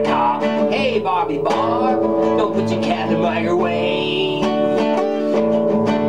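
Acoustic guitar strummed through an instrumental break of a song, with held notes and some gliding, voice-like sounds over the strumming.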